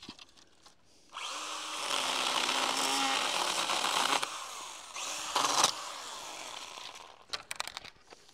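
Stihl GTA 26 battery mini chainsaw cutting through thin dry branches in two runs, the first starting about a second in and the second about five seconds in. A few sharp clicks follow near the end.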